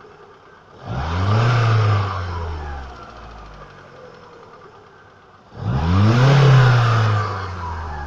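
Car engine idling and revved twice from idle, each blip rising and falling back to idle about a second and a half later. It is revved to bring out a knock (a clatter) that shows up as the throttle is lifted.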